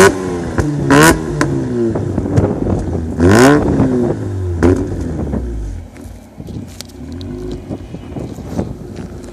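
2004 Mazda RX-8's twin-rotor Renesis rotary engine, decatted and on a Borla exhaust, revved up and down several times. The revs are punctuated by loud pops and cracks from the exhaust as it throws flames. About six seconds in it drops to a quieter, steady running sound with occasional small crackles.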